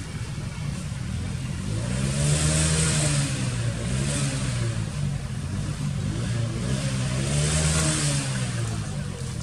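Motor vehicle engine passing by, swelling and fading twice, loudest about two and a half and seven and a half seconds in.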